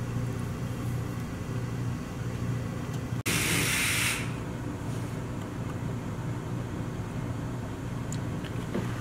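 Electric soldering gun humming steadily while wires are tinned with solder. A short, loud burst of hiss comes a little over three seconds in.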